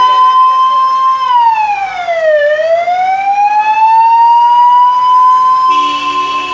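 Ambulance siren sounding loudly: a held high tone that dips in pitch about a second in, then climbs slowly back over a few seconds and holds. Near the end a second, steadier set of tones joins in.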